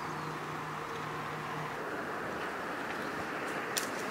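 Steady outdoor background hiss with a faint low hum that fades out about halfway through, and a few short, sharp clicks near the end.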